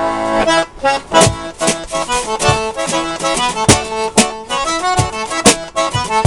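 Accordion and fiddle playing a traditional dance tune, with a drum-case kick drum thumping out the beat underneath.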